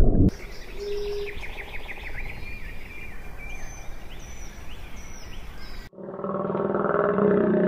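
Small birds chirping in a forest, with short high notes repeated in quick runs. Near the end this gives way abruptly to a louder low drone with several steady pitches.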